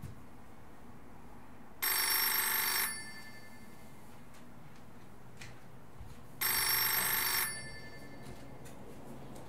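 A telephone ringing twice, each ring about a second long, with a pause of about three and a half seconds between them.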